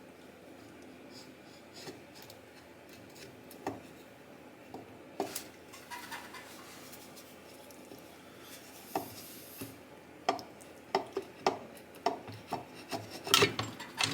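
Light scraping and rubbing as a metal engine cover on a small motorcycle engine is worked loose from its gasket, then a run of sharp clicks and knocks in the last few seconds, loudest near the end.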